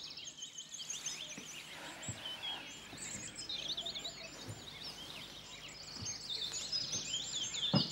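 Small birds chirping and singing continuously, many quick rising and falling chirps, busiest near the end, with a few faint soft thuds.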